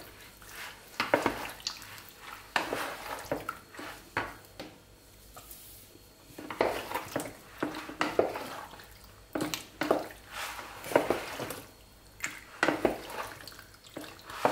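A metal spoon stirring cheese-sauce-coated penne in a ceramic bowl. The spoon clinks and scrapes against the bowl in irregular bursts, with a short pause about five seconds in.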